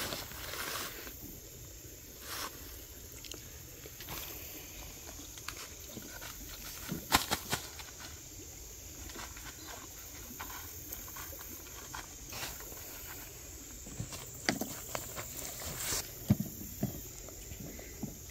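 Small dogs moving about on a nylon tent floor: scattered taps, knocks and rustles, with a few brief low animal sounds near the end.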